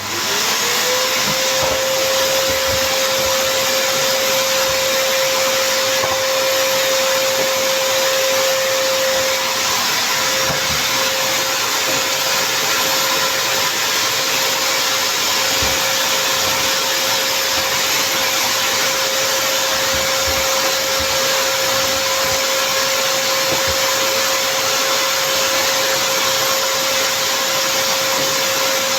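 Samsung vacuum cleaner switched on: its motor spins up within about a second to a steady whine, then runs evenly over a loud rush of air.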